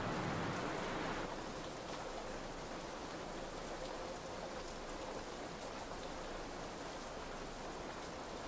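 Heavy rain falling steadily, an even hiss of rain on the ground; a fuller, lower part of the sound drops away about a second in.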